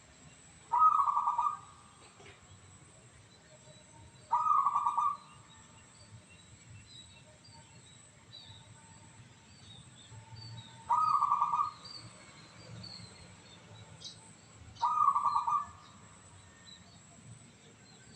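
Zebra dove (perkutut) cooing: four short, rolling coo phrases, each under a second long, a few seconds apart. Faint high chirps from other small birds sound in between.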